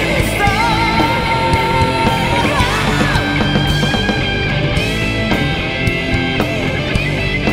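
Live rock band playing loud: distorted electric guitars, bass and drums, with a lead line of long held notes that bend and slide in pitch.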